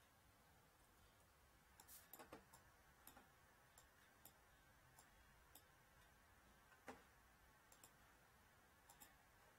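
Near silence: room tone with a few faint, short clicks, the clearest about two seconds in and about seven seconds in.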